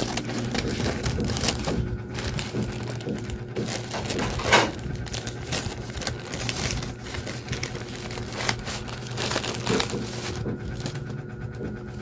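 Thin plastic courier pouch being cut with scissors and pulled open, crinkling and rustling with many small irregular clicks. One louder, brief sound comes about four and a half seconds in.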